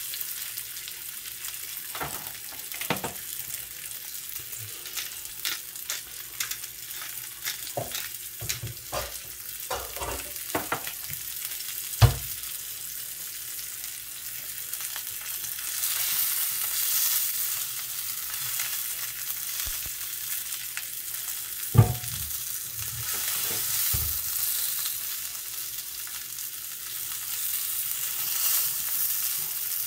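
Dry-aged ribeye sizzling in oil in a cast iron skillet: a steady high hiss that swells louder at times. Scattered knocks come from wooden chopsticks against the steak and pan as it is moved, with two sharper knocks partway through.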